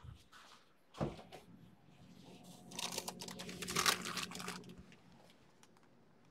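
A freezer being opened and a tray of candy taken out. There is a knock about a second in, then about two seconds of rattling, crinkling clatter over a low hum.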